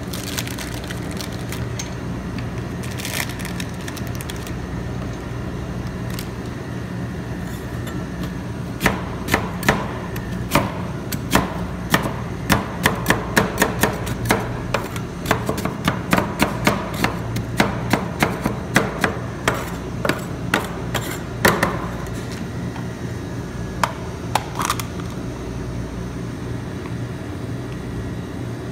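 Two metal spatulas chopping cream-filled biscuits on a steel rolled-ice-cream cold plate: a rapid, irregular run of sharp metal clacks and crunches that starts about a third of the way in and stops about three quarters through, with two more strokes shortly after. A steady low hum runs underneath.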